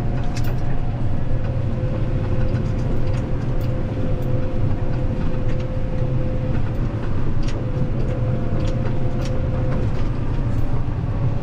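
Case IH 8250 combine heard from inside the cab while harvesting corn: a steady low drone of the engine and threshing machinery with a steady whine above it and a few faint ticks.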